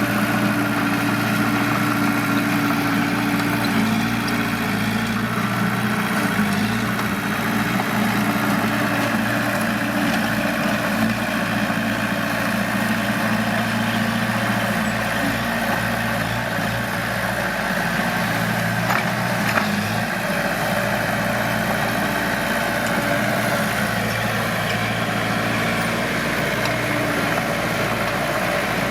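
Heavy diesel earthmoving machine engine running steadily at low revs, with one short knock about nineteen seconds in.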